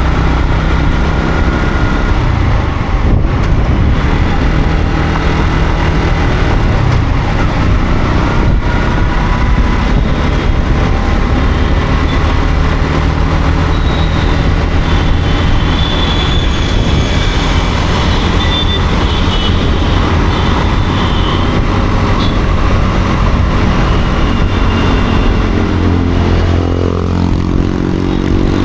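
Yamaha MT-15's single-cylinder engine running as the motorcycle rides through city traffic, with road and wind noise. The engine pitch rises near the end as the bike accelerates.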